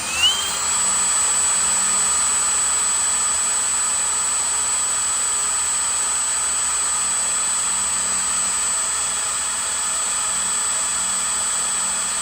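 Electric drill running at full speed, spinning a boat engine's alternator to test whether it charges: a steady high whine that rises in pitch as it spins up and cuts off suddenly at the end.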